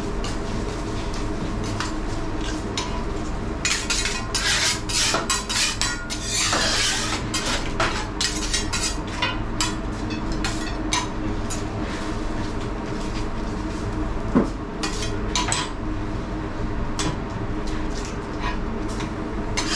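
Metal spatulas clinking, tapping and scraping on a teppanyaki steel griddle while eggs are cooked, in quick runs of sharp clicks. There is a short hiss about six seconds in, over a steady background hum.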